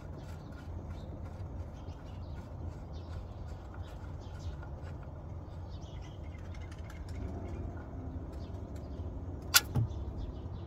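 Faint clicks and rubbing of an oil drain plug being unscrewed by hand under a car, over a steady low hum, with one sharp click near the end.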